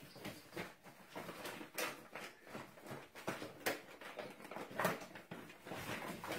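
A large dog food bag crinkling and rustling irregularly as a puppy crawls around inside it and pushes it across a tile floor.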